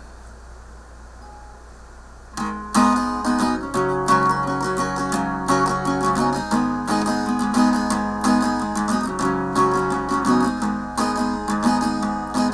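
Acoustic guitar strummed in a steady rhythm, playing the introduction to a song; the strumming starts about two seconds in, after faint room noise.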